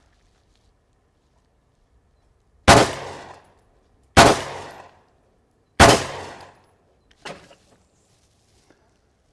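Three gunshots about a second and a half apart, each sharp crack ringing out briefly. A faint single knock follows about a second and a half after the last shot.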